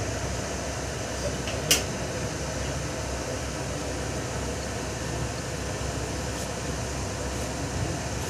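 Steady drone of a large evaporative air cooler's fan, with a single sharp click about two seconds in.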